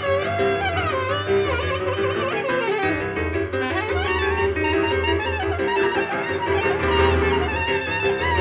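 Live improvised music: a reed wind instrument playing wavering, sliding lines over a steady held tone and a low drone.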